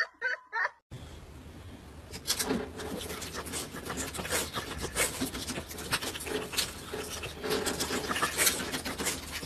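A husky licking a squeeze-tube treat: quick, irregular wet licks and slurps over a low hiss, starting about two seconds in.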